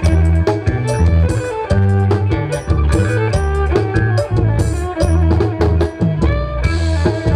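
Band music with a drum kit keeping a steady beat under a bass line and a melody.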